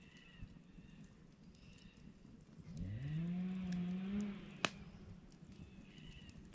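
A cow lows once in the distance: a low, drawn-out moo that rises in pitch and then holds for about a second and a half. Small bird chirps come and go, and there is one sharp click just after the moo.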